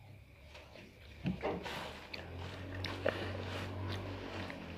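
Close-up eating and handling noises: small clicks and rustles as a child picks rice by hand from a plate and eats, with a louder rustle about a second in, over a steady low hum.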